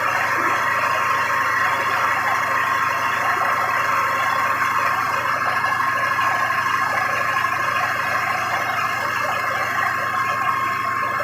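Large 1000 kVA Cummins diesel generator set running steadily under no visible change, its engine noise carrying a steady high whine.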